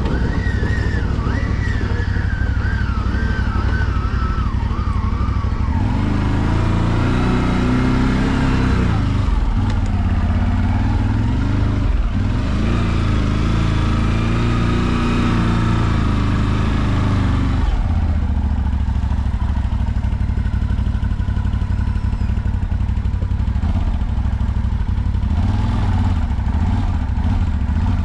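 CF Moto 850XC ATV's V-twin engine running as the quad is ridden, its note rising and falling under throttle from about six seconds in until about eighteen seconds, then settling back to a steadier run.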